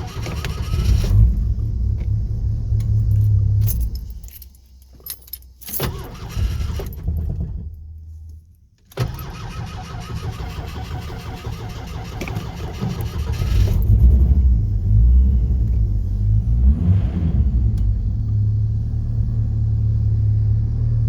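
1986 Mustang SVO's turbocharged 2.3-litre four-cylinder engine running through a 3-inch stinger exhaust, dropping away about four seconds in, with keys jangling and short bursts of cranking, then catching suddenly about nine seconds in and running on, louder from about fourteen seconds. The hard starting, which the owner says needs the gas pedal pressed, is a sign that something is not right with the engine.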